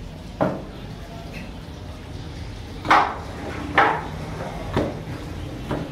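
Five sharp knocks as wet trotters are dropped into a large aluminium cooking pot packed with raw meat and leg bones. The loudest two come about three and four seconds in.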